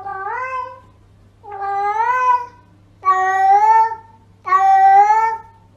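A domestic cat meowing four times in a row. Each meow is drawn out, almost a second long, with a slight rise and fall in pitch, about one every second and a half.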